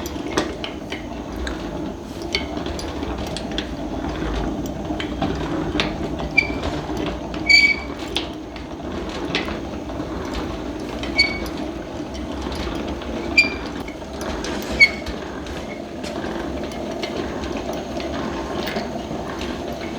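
Hand-cranked honey extractor spinning its loaded frames: a steady whirring rattle from the gears and drum, with ticks and a few short, sharp ringing pings now and then.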